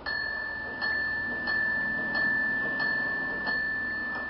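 Antique grandfather clock striking the hour: six strokes about two-thirds of a second apart, each a single clear ringing tone that carries on between strokes and slowly fades after the last.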